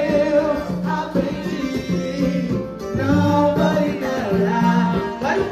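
Pagode band playing live, with singing over plucked strings and hand percussion.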